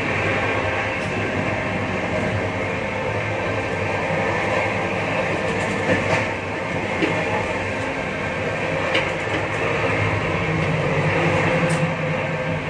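A moving passenger train coach heard from inside its toilet cubicle: a loud, steady rumble and rattle with wheel clatter over the rails, and a few sharp knocks scattered through it.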